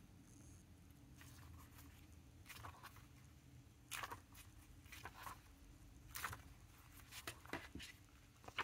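Near silence with a handful of faint, brief paper rustles from about two and a half seconds in: the pages of a Hobonichi Cousin planner being turned and pressed open to break in the binding.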